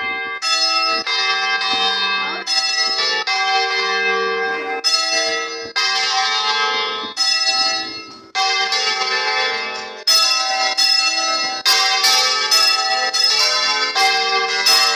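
Church bells swung full circle in a general volteo, heard close up from inside the belfry: loud overlapping clapper strikes, each leaving a long ringing tone. From about ten seconds in the strikes grow louder and come thicker and faster as more bells join.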